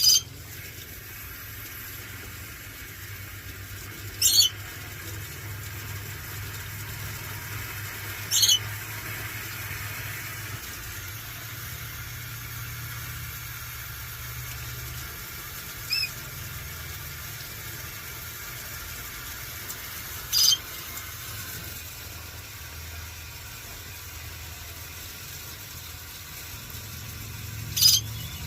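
A parrot gives short, shrill squawks, five loud ones a few seconds apart and a fainter one midway. A steady low hum runs underneath.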